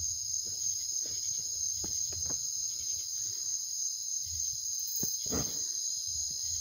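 Night insect chorus: a steady, high-pitched trill from crickets or similar insects that does not let up. A faint low rumble lies underneath, with a short dull thump about five seconds in.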